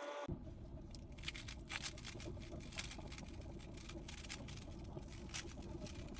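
Rubik's cube being turned by hand: rapid, irregular plastic clicks and rattles of the layers over a low steady room hum.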